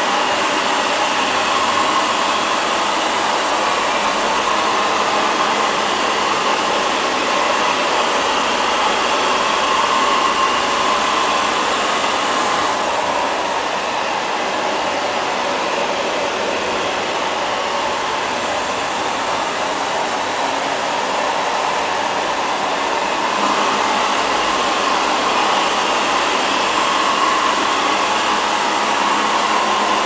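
LL-306 robot vacuum cleaner running, its suction fan and brushes giving a steady whir as it cleans a hard tile floor. The sound softens and dulls somewhat for a stretch in the middle.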